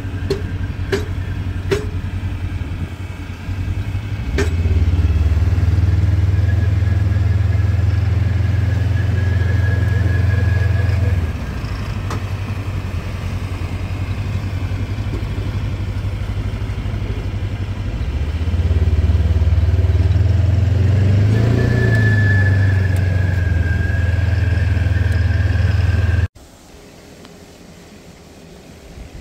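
Engine of a farm vehicle running steadily while hauling hay, its hum swelling for two long stretches as it pulls harder, with a few rattling clicks in the first few seconds; the engine sound drops away abruptly near the end.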